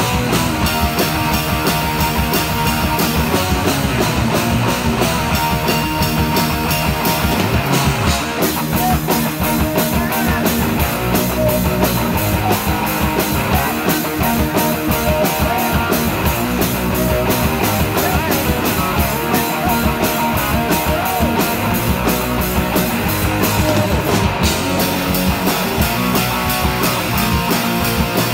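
Loud rock music: electric guitar over a steady beat.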